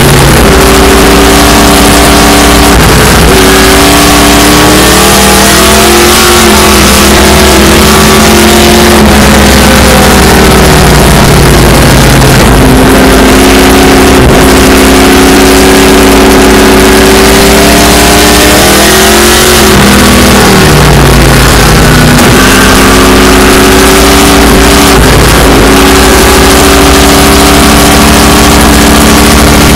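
Ford Falcon race car's engine, heard from inside the car while lapping a circuit, very loud. The revs repeatedly climb and fall through braking and corners, dropping sharply about a third of the way in and again about two-thirds through, over a steady rushing noise.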